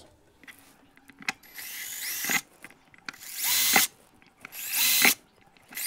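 Cordless drill with a 5/32-inch bit pre-drilling holes in a snowmobile glove box extension door: three short bursts, each starting with a rising whine as the motor spins up.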